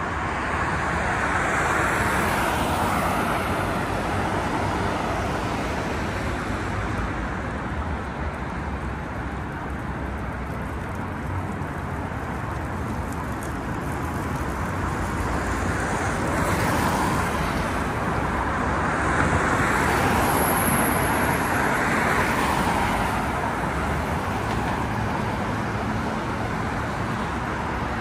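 Steady city road traffic, cars passing one after another, louder as vehicles go by about two seconds in and again several times past the middle.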